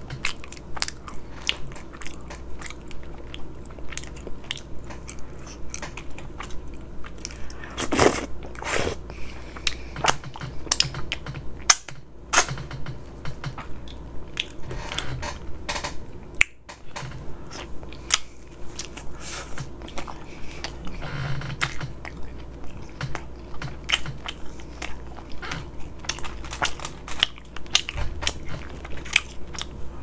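A person chewing and smacking food close to the microphone: a dense, irregular run of small wet mouth clicks and smacks while eating by hand.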